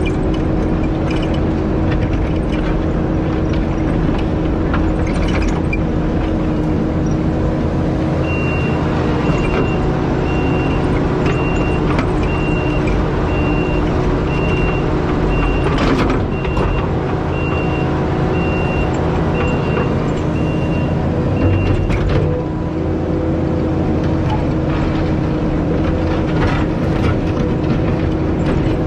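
Diesel engine of a compact earthmoving machine running steadily under work. A backup alarm beeps about once every three-quarters of a second for roughly fourteen seconds starting about a quarter of the way in. A couple of sharp knocks stand out near the middle and again shortly after the alarm stops.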